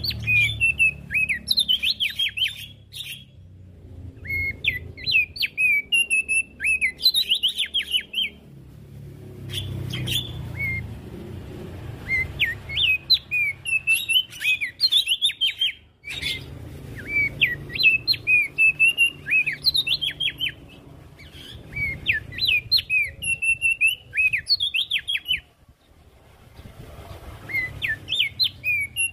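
Opior jambul (streaky-headed white-eye) singing in repeated phrases of rapid, high chattering notes, each phrase a few seconds long with short pauses between, over a low background rumble.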